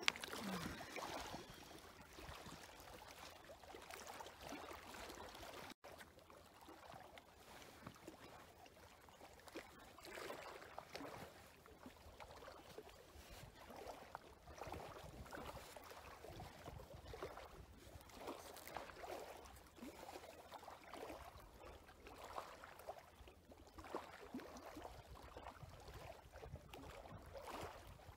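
Faint water lapping and trickling, a run of small irregular splashes.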